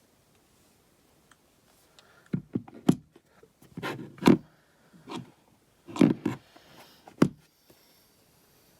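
A string of knocks and clicks from a guitar pedal's metal case being handled as it is taken apart, starting about two seconds in and stopping a little before the end.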